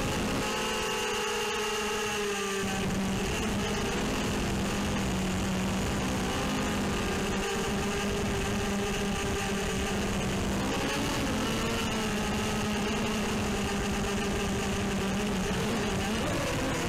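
Brushless motors and propellers of a ZMR180 racing quadcopter, heard through its onboard camera, buzzing steadily in flight, the pitch shifting with throttle changes near the start and again near the end.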